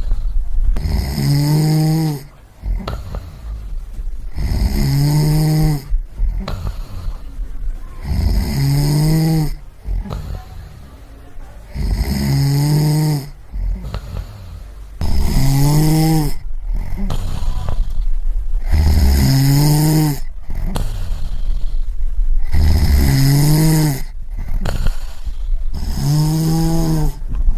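A person snoring in a steady rhythm, a snore about every four seconds. Each snore is a low pitched rasp that rises and falls, with a quieter breathy stretch between snores.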